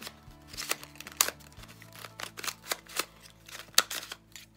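Plastic container cube twisty puzzle being turned quickly by hand: an irregular run of sharp clicks and clacks as the layers snap round. The puzzle is unlubricated and dry-feeling straight out of the box.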